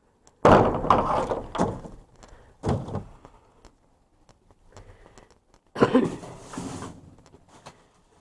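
Thuds and scraping as cases of canned pop are dragged and shifted in a metal dumpster, in three separate bouts of clatter.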